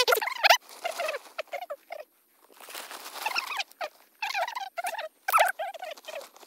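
Hands scattering dry straw chaff and loose soil over a buried leg-hold trap: a dry rustling between sounds. Through it come repeated short, high-pitched animal calls that bend up and down in pitch; these calls are the loudest thing heard.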